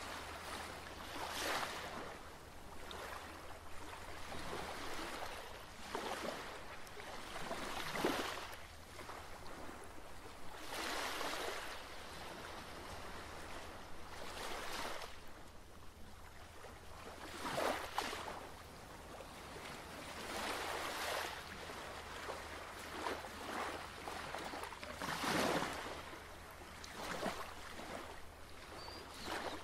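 Ocean waves washing in, a swell of surf every two to four seconds that rises and fades over about a second, over a steady low rumble.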